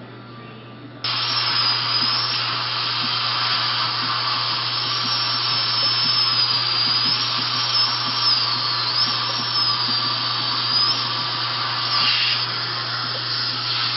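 Dental drill (high-speed handpiece) running on a broken tooth with its hissing water spray. It starts abruptly about a second in, and its thin high whine wavers up and down as it cuts.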